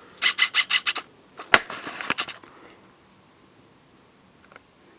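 Handling noise: a quick run of scrapes and clicks, one sharp click about a second and a half in, a few more, then it goes quiet.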